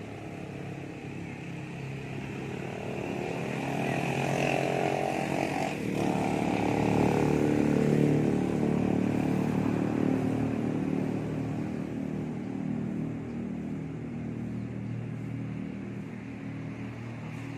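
Motorcycle engine passing along the nearby road, growing louder toward the middle and then fading away.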